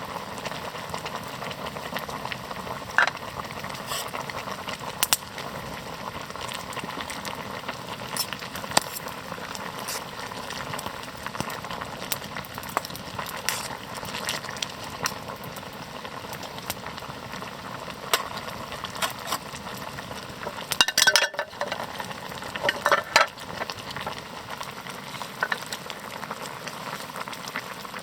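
Cooking over a campfire: a steady sizzling crackle with scattered sharp pops. There is a louder cluster of clicks and pops about 21 seconds in, and another about 23 seconds in.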